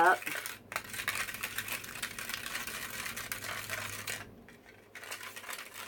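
A small plastic spoon stirring powder and water in a plastic candy-kit tray: rapid scraping and clicking against the plastic. It stops about four seconds in, leaving a few faint ticks.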